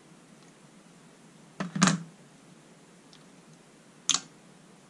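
Hard, sharp clicks from a small metal spanner and the plastic knob of a Kenwood Chef mixer's rotary speed switch being worked loose: a quick cluster of clicks just under two seconds in, the loudest, then a single click just after four seconds.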